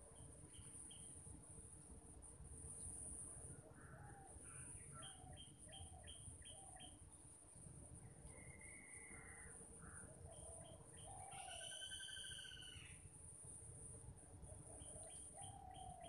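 Garden birds calling faintly. There are quick runs of short high notes, a few lower whistled notes, and a louder, harsher call with several pitches about three-quarters of the way through. Under them runs a steady high insect drone and a low rumble.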